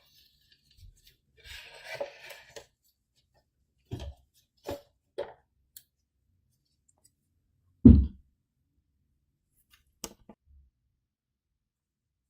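Scattered clicks and knocks of laptop parts being handled during repair, with a short scraping about two seconds in and a louder thud about eight seconds in.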